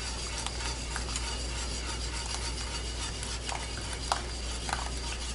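Wire whisk stirring hot milk in a stainless steel pot: a steady swishing with a few light clinks of the wires against the pot, as tempered egg yolk is whisked into the milk for a custard.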